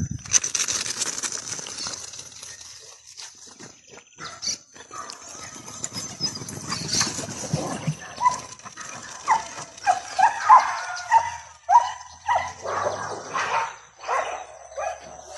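Dogs attacking another dog: a rapid run of sharp barks and yelps through the second half.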